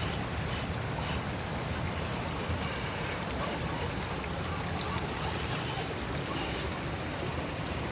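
Steady rushing noise with a low rumble, and over it a thin steady high whine from the RC crawler's electric motor as it crawls slowly through rocky holes.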